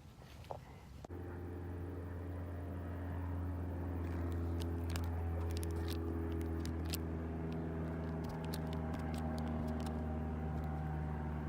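A motor running with a steady low hum made up of several pitches, starting abruptly about a second in, with scattered sharp clicks over it midway.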